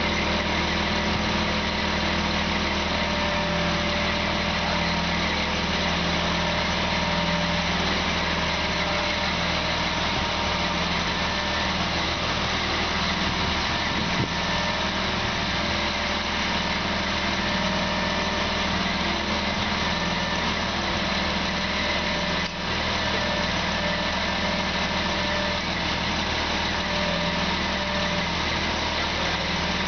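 Truck-mounted crane's engine running steadily while the crane holds and swings a heavy suspended load.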